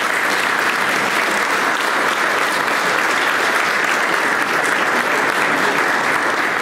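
Audience applauding steadily, a dense even clapping that begins to die away near the end.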